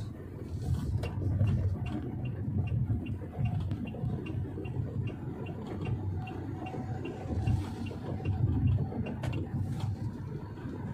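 Road and engine noise of a Wuling Almaz 1.5 turbo SUV while driving steadily, with a regular quick ticking of about three ticks a second.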